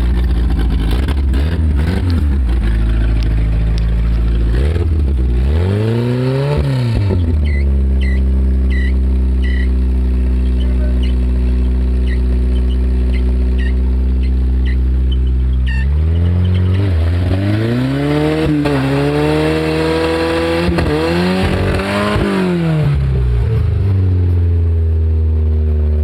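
1988 Honda Accord's four-cylinder engine running just after a cold start, at a steady fast idle. It is revved up and back down once a few seconds in, then revved several more times in the second half before settling back to idle.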